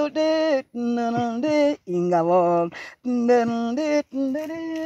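A woman singing unaccompanied in Kinyarwanda, repeating the word 'ingabo' in short held phrases with brief breaths between them.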